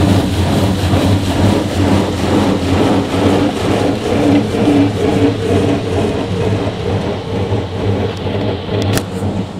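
Touchless car wash's high-pressure water jets spraying over the car, heard from inside the cabin as a steady rushing spray on the glass and body, over a steady low machine hum. A single sharp click comes near the end.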